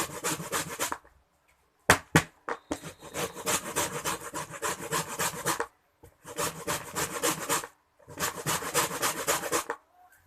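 Lemon peel being rubbed on a fine hand grater to take off the yellow zest, in quick, even scraping strokes. The strokes come in four runs with short pauses between them, and a few sharp knocks about two seconds in.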